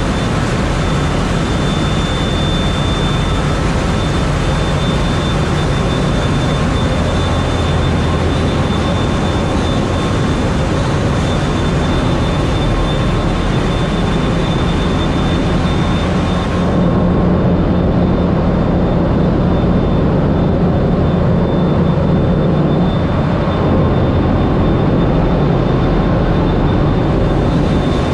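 Loud, steady machinery noise of a container ship's engine room, with the running main engine, pumps and other plant blending into one dense drone and a thin steady high whine over it. About two-thirds of the way in the high hiss drops away and the low rumble becomes a little stronger.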